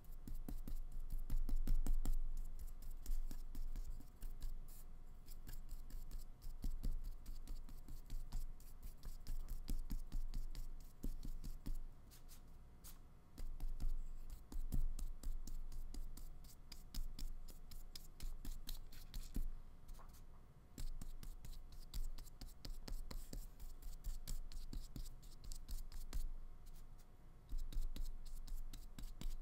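Flat paintbrush loaded with acrylic paint scratching and rubbing across paper in many short, irregular strokes.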